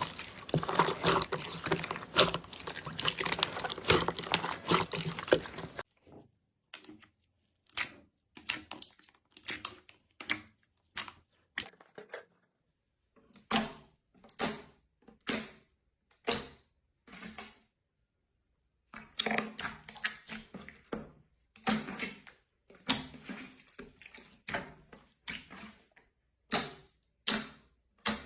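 Slime being squeezed and pressed by hand: for about six seconds a dense run of crackling clicks, then a string of separate short sticky pops and squelches with brief silences between them.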